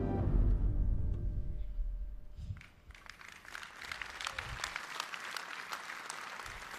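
Music with a deep bass fades out over the first two seconds or so. Then an audience applauds.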